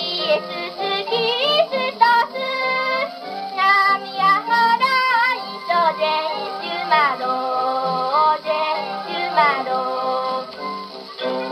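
A child's voice singing a Japanese children's song with instrumental accompaniment, played from a 78 rpm record on an HMV Model 102 wind-up portable gramophone. The sound is thin and boxy, with no deep bass and no high treble.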